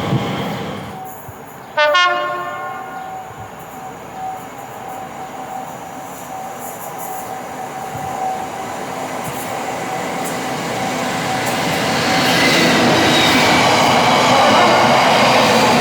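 Train horn: a blast cutting off at the start and a short, sharp toot about two seconds in, then the train's running noise growing steadily louder as it approaches.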